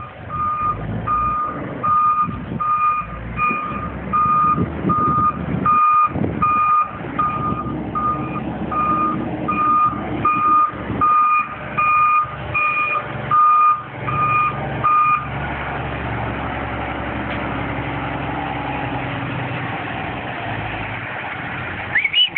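Kenworth T660 semi-truck's backup alarm beeping about one and a half times a second over the diesel engine as the rig reverses. The beeping stops about two-thirds of the way through, leaving the engine running steadily, and a short rising squeal comes at the very end.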